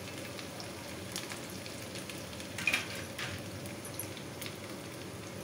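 Sliced onions sizzling and crackling in hot mustard oil in a small kadhai, with one louder click about halfway through.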